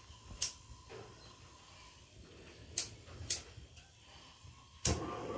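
A few sharp metallic clicks, then about five seconds in a steady hiss of gas starts suddenly and keeps going.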